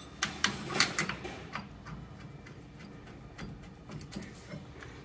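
Light metallic clicks and taps of an aluminium four-piston brake caliper and its mounting bolts being handled and fitted onto a front hub. The clicks come close together in the first couple of seconds, then a few fainter ticks follow.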